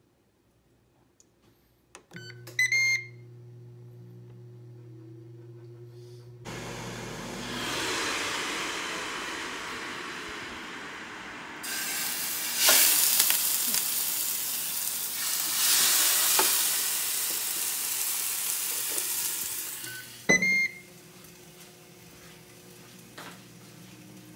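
Ninja Smart Grill beeps and its fan hums. Then the oiled snakehead fish sizzles loudly as it is laid on the hot grill grate, for about fourteen seconds, loudest in its second half. Near the end there is another beep with a click, and the grill's hum resumes.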